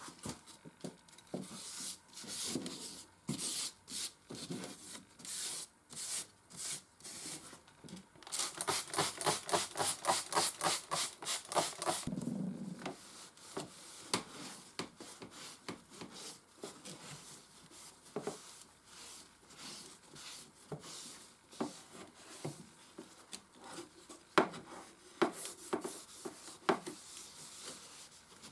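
Hand scrubbing and rubbing strokes on typewriter parts during cleaning, with a fast, even run of about four or five strokes a second for a few seconds in the middle, and a few sharp clicks, the loudest one near the end.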